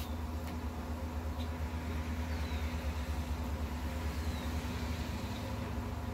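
A steady low hum, with a faint high chirp that falls in pitch a few times.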